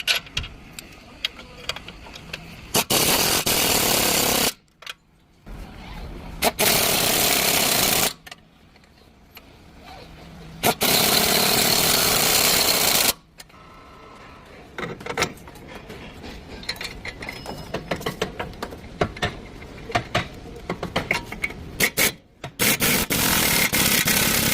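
Air impact wrench running in four bursts of about two seconds each, with clicks and metal knocks between them, as suspension bolts are undone or run in.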